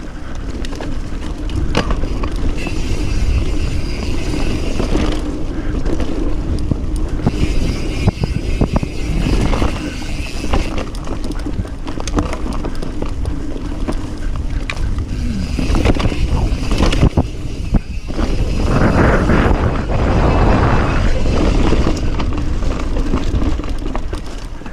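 Mountain bike descending a dirt singletrack: wind buffeting the microphone and tyres rolling over the dirt, with the bike rattling and knocking over bumps.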